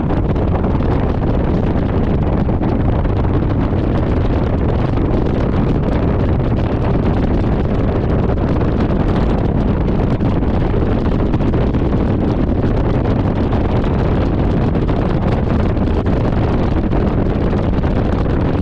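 Steady wind rushing over the microphone of a motorcycle cruising at an even speed, with the bike's engine and its tyres on the wet road underneath.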